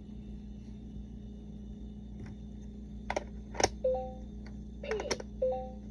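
LeapFrog Fridge Words toy: sharp plastic clicks from about three seconds in, the loudest just after, as the magnetic letter pieces are handled in its slots. The toy gives two short electronic beeps, about a second and a half apart, over a steady low hum.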